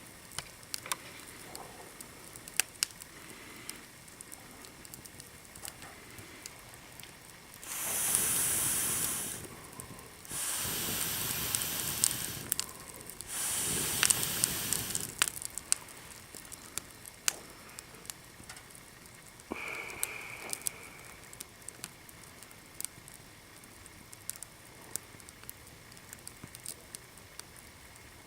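Small fire crackling, with sharp pops all the way through. About a third of the way in come three long rushes of hiss in a row, each two seconds or so.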